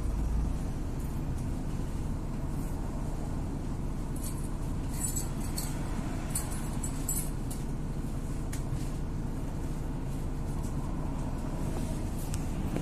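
Cabin noise of a moving MAZ-103.564 city bus: a steady engine and road drone. A few seconds in, a short run of light clinking rattles.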